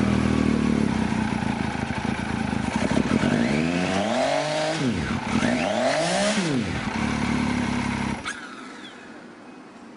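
Newly assembled Benelli motorcycle's inline three-cylinder engine running at idle on its first start. It is revved twice in short blips that rise and fall in pitch, then goes on idling until it stops suddenly near the end.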